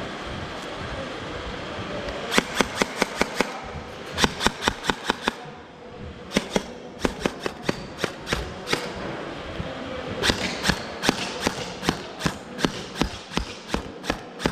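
Gel blasters firing in rapid strings of sharp shots, about six a second, in several bursts from about two seconds in.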